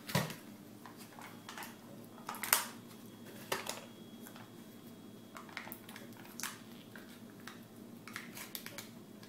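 Plastic Snack Pack pudding cup being worked free of its multipack and its foil lid peeled back by hand: a few sharp clicks in the first four seconds, then light crinkling ticks.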